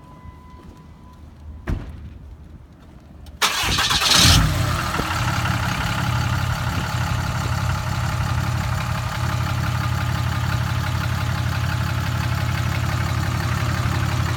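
Dodge Ram 3500 dually pickup's engine being started: it cranks and catches suddenly about three and a half seconds in, then settles into a steady idle.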